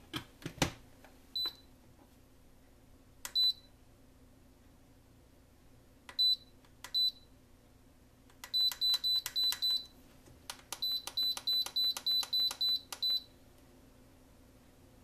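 Lid of an Aroma digital rice cooker clicking shut, then its control panel beeping at each button press: a few single short high beeps, then two quick runs of about six and about nine beeps as the steaming timer is stepped up to 20 minutes.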